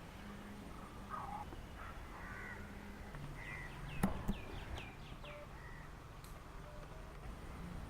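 Birds calling, with a run of about six short falling calls in the middle, over a faint steady low hum; a sharp click about four seconds in.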